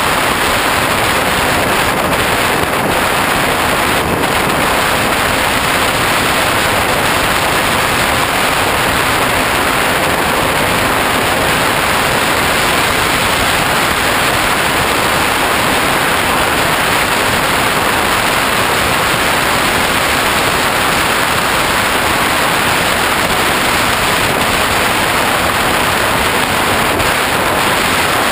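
Steady, loud rush of airflow over a GoPro camera mounted on a Hobbyking Bixler RC plane in flight.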